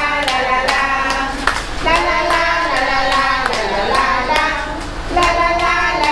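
Music: a melody over a steady clapping beat of about two and a half claps a second, between verses of a song about teacher-mothers.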